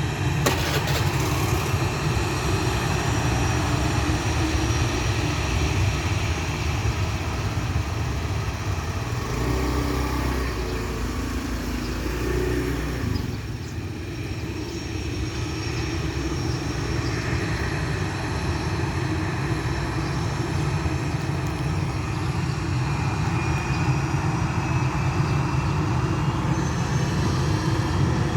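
Airbus A320's CFM56 turbofan engines running at taxi power: a steady jet whine over a low rumble. The whine rises in pitch over the last few seconds.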